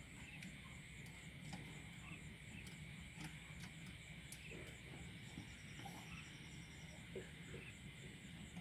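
Faint steady low hum and hiss, with a few faint clicks and a brief run of rapid high ticking about five seconds in. The speaker on the amplifier's left channel gives no sound, because that channel's burst capacitor leaves it dead.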